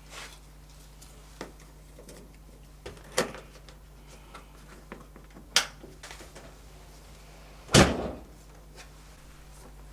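A few sharp clicks and knocks, then a loud heavy thud about eight seconds in as the door of the Beko DWD5410W dishwasher is shut.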